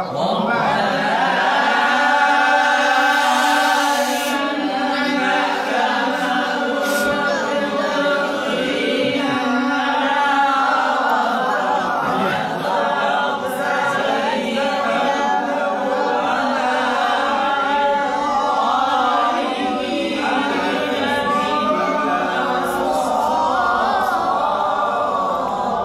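Several young voices reciting a Quranic verse together in unison, unaccompanied, in a long melismatic chant in maqam Hijaz, repeating the teacher's recitation.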